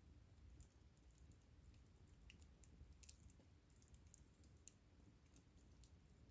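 Faint wood fire crackling: irregular small snaps and pops, several a second, over a low steady rumble.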